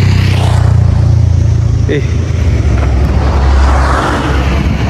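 A motor vehicle's engine running close by with a steady low hum, and the noise of a passing vehicle swelling and fading about three to four seconds in.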